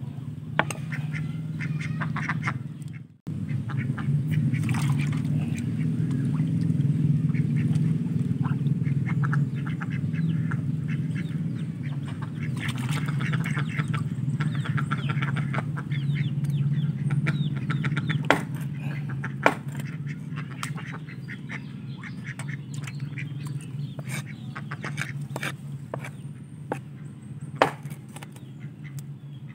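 A group of domestic ducks quacking and chattering continuously over a steady low hum, with a few sharp knocks of a knife striking a wooden chopping block in the second half.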